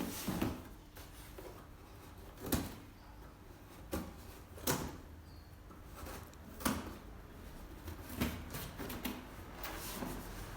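A stubborn cardboard shipping box being worked open by hand: irregular knocks, scrapes and rustles of cardboard every second or two.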